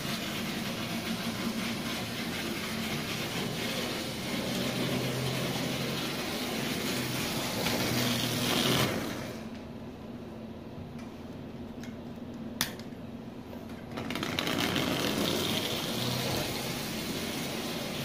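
Marx Commodore Vanderbilt toy locomotive's small electric motor running steadily as it travels around tinplate track. The sound swells about eight seconds in, then falls quieter for about five seconds, with one sharp click, before coming back.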